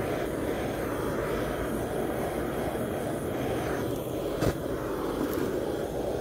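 Handheld butane torch's blue flame jetting steadily as it scorches the surface of pine log-slice coasters to bring out the grain. A single sharp click about two-thirds of the way through.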